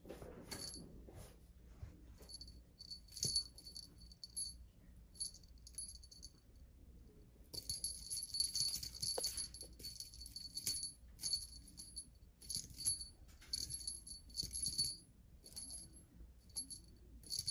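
Small jingle bell on a feather cat-teaser wand jingling in short shakes, on and off, busiest about halfway through.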